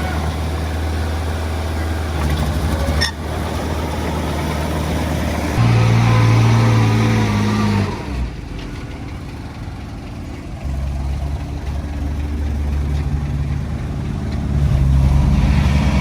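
Diesel engine of heavy earthmoving equipment running. About five seconds in it revs up for a couple of seconds, then drops back and runs quieter for a while before settling into its steady note again. There is a single sharp click about three seconds in.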